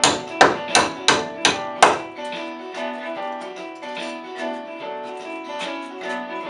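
Background guitar music, with a hammer striking about six quick blows in the first two seconds as it drives cable staples into a wooden stud to secure electrical cable.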